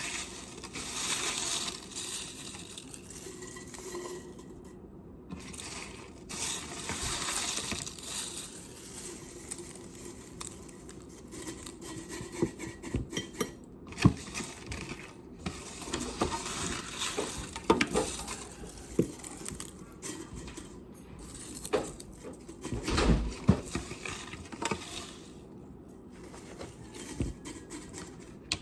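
Rustling and crackling of dried herb leaves being handled, with scattered clinks and knocks of glass jars.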